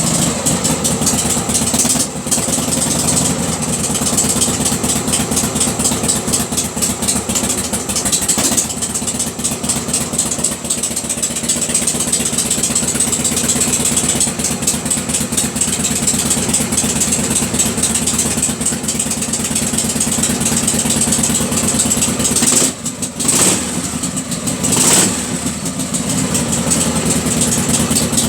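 Harley-Davidson Shovelhead V-twin engine idling steadily after a cold start, its ignition timing freshly reset to cure a hard-starting problem, with a couple of brief changes in its note near the end before it stops.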